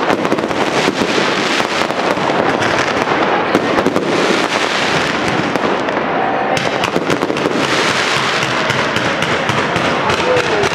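Dense fireworks barrage: a continuous rattle of rapid bangs and crackling reports. The high crackle thins briefly about six seconds in, then fills in again.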